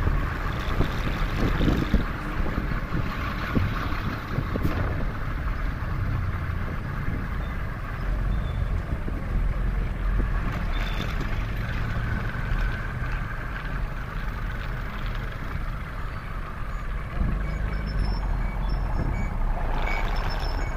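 Steady road noise of a motorcycle riding through traffic: engine and tyre noise, wind rumbling on the microphone, and trucks and motorcycle tricycles running close by.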